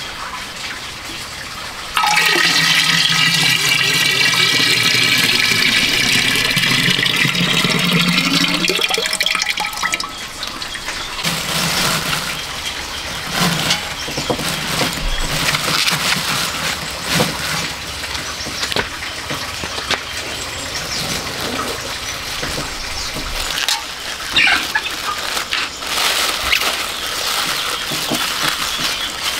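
Lemon juice pouring into a glazed ceramic jar, a steady splashing pour that starts about two seconds in and stops about ten seconds in. Then plastic film crinkles as it is wrapped and pressed around the jar's lid to seal it.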